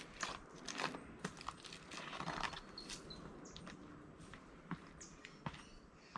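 Faint footsteps crunching and rustling on a leaf-strewn rainforest trail, an irregular run of small crunches and clicks, with a short high chirp about three seconds in.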